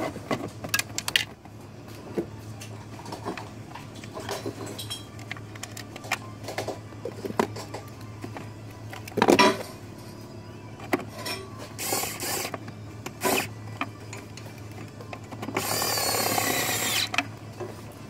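Plastic glove box panel being handled and pushed into the dashboard, with scattered clicks and knocks and one loud knock about nine seconds in. Near the end a cordless power screwdriver runs in a short whine of under two seconds, driving in a fastener.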